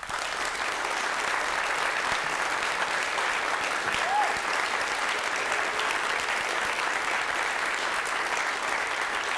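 Audience applauding: many people clapping steadily, breaking out all at once.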